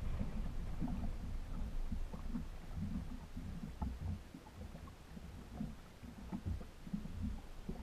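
Water slapping and lapping against the hull of a small aluminium boat, heard as low, irregular thumping and rumbling.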